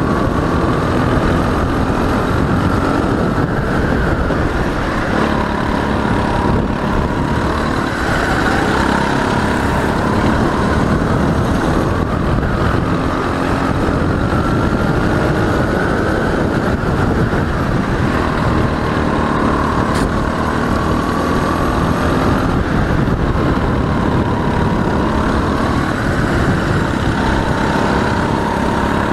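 Go-kart engine heard from on board during hard driving, its pitch rising and falling as it revs up on the straights and drops for the corners, over a steady rush of wind and road noise.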